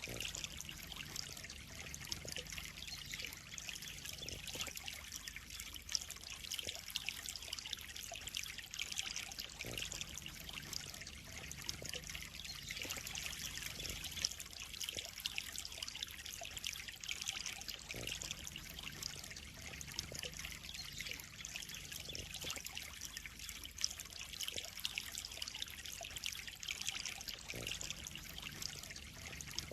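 Water steadily trickling and splashing into a koi pond, an even, unbroken patter.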